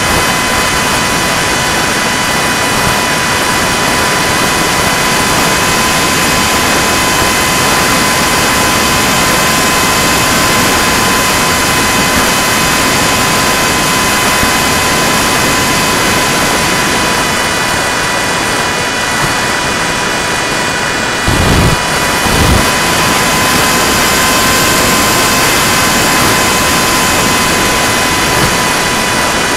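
Homemade foam RC F-22 jet's electric motor whining steadily in flight, heard from on board over loud wind rush. A couple of low wind buffets come about two-thirds of the way through.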